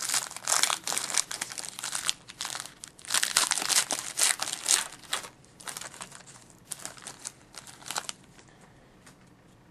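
Wrapper of a hockey trading-card pack being torn open and crinkled: a dense crackling that thins out and fades about eight seconds in.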